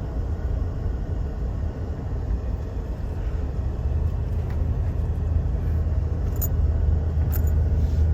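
Steady low rumble of a car's engine and tyres heard inside the moving cabin, with two faint clicks near the end.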